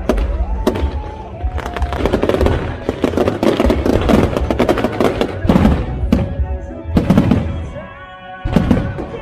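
Fireworks going off in many sharp bangs, densest through the middle, over music with held and gliding tones.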